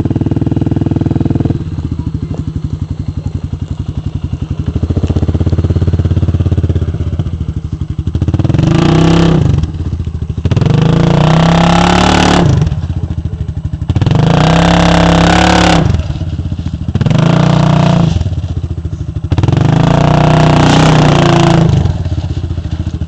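Quad (ATV) engine running steadily, then revved hard five times from about nine seconds in, each surge lasting one to two seconds with the pitch climbing and dropping back.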